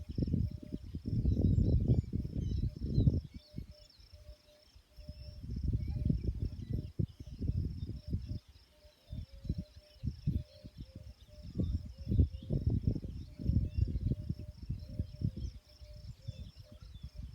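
Wind gusting across the microphone in irregular low rumbles that come and go, over insects chirping steadily in the background.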